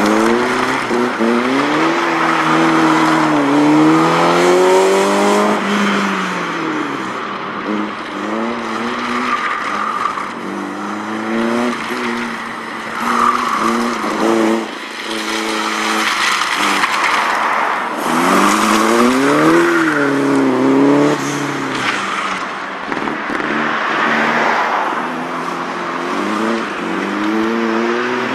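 Small Honda S-series sports car's high-revving four-cylinder engine, revved up and dropped back again and again as it is driven hard through tight turns, with tyres squealing in the corners.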